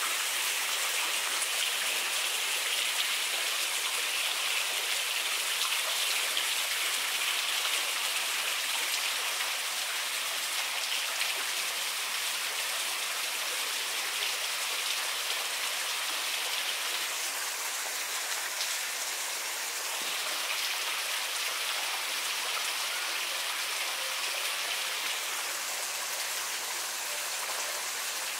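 Steady rushing hiss of running water.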